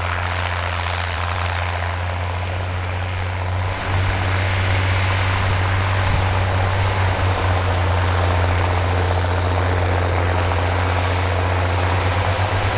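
Ford 7810 Gen III tractor's six-cylinder diesel engine running steadily under load as it pulls trailed offset discs through hard stubble, a deep even drone. It gets louder about four seconds in.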